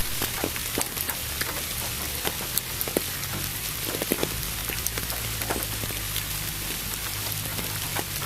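Steady rain mixed with pink noise: an even hiss with scattered sharp drop hits and a low steady hum underneath. It cuts in suddenly after a moment of silence.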